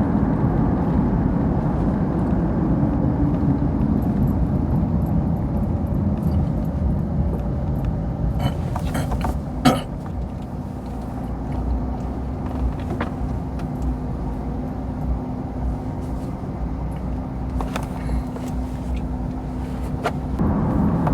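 Steady road and engine noise heard inside a moving car's cabin, with a single sharp knock about ten seconds in.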